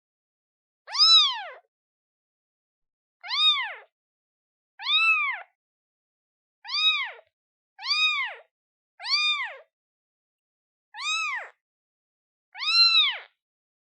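Newborn kitten, a day old, meowing to call its mother: eight short, high cries, each rising and then falling in pitch, with brief pauses between them.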